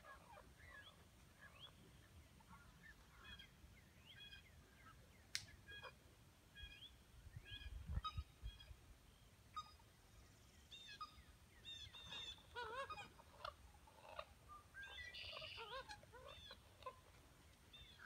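Faint chorus of birds calling at an egret rookery: many short chirping and croaking call notes overlapping, thickening in the second half. A single sharp click about five seconds in, and a brief low rumble near the middle.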